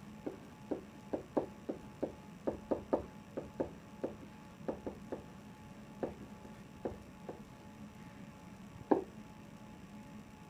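Pen tip tapping and knocking against an interactive whiteboard's surface during handwriting: a quick run of small knocks that thins out, then one louder knock near the end.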